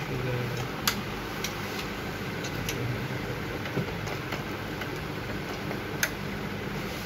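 A few light clicks and taps of hands and tools on a projector's opened circuit board and plastic chassis, over steady background hum. The two sharpest clicks come about a second in and near the end.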